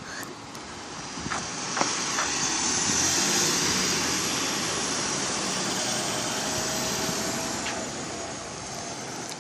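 Rushing engine noise of a recycling truck working close by. It swells over the first few seconds, holds, and eases off near the end, with a faint high whine above it and a few light knocks early on.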